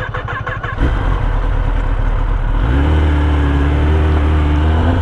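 Kawasaki Ninja ZX-10R inline-four engine running loud. It pulses unevenly at first, jumps in loudness about a second in, then settles into a steady, higher drone that holds.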